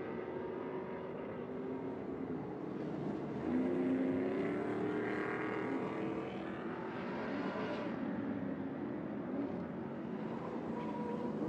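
Stadium Super Trucks' V8 engines running hard at racing revs as the trucks drive by, loudest about four to six seconds in as they pass.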